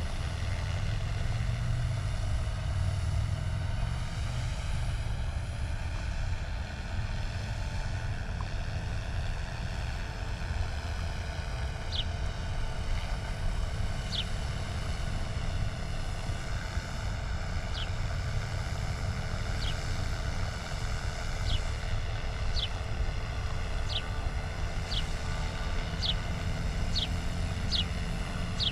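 Small helicopter flying low, its engine and rotor droning steadily. From about twelve seconds in, short high chirps that fall in pitch repeat every second or two, coming faster toward the end.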